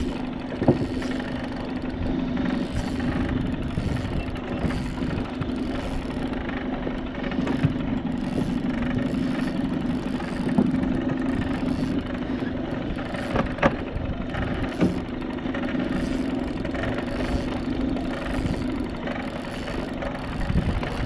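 The motor of a small aluminium fishing boat running steadily, a continuous hum, with a few sharp knocks: one just under a second in and two more around the middle.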